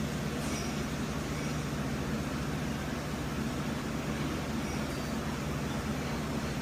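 Steady machine hum with a constant low drone, unchanged throughout.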